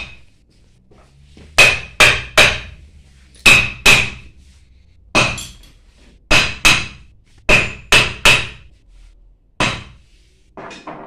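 Hammer striking metal pump parts, about a dozen sharp blows in quick pairs and threes with short pauses between, each ringing briefly; the last few near the end are fainter. The blows come during work on a booster pump's shaft, bearing and seal.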